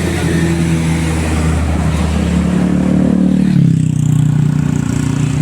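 A bus engine running loud and hard as the bus climbs the hill past the roadside. Its deep hum shifts down in pitch about three and a half seconds in.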